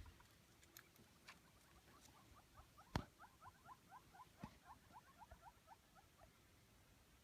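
African wild dogs twittering: a faint, fast run of short high squeaky chirps, about six a second, that stops near the end. A single sharp click comes about three seconds in.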